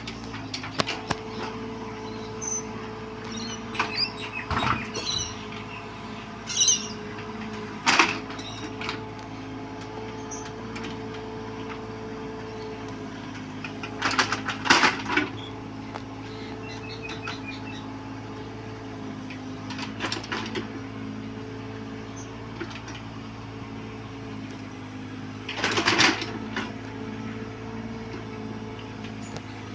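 Bobcat 322 mini excavator running steadily while it works, with scattered sharp knocks and clanks from the bucket and machine, the loudest three coming about eight, fifteen and twenty-six seconds in.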